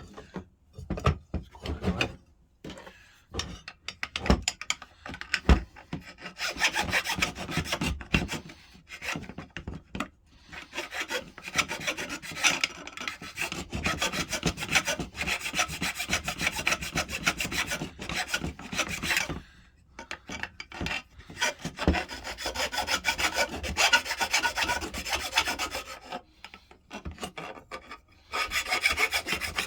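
A few knocks from handling the tool, then a hand file rasping back and forth in quick strokes, filing away a metal tab that clogs the dust-extraction port of a DeWalt biscuit jointer. The filing stops briefly a few times.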